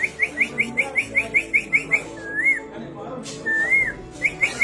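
A man whistling an imitation of a canary's song. It opens with a fast run of short rising chirps, about six a second, then two slower swooping notes, then a few more quick chirps near the end.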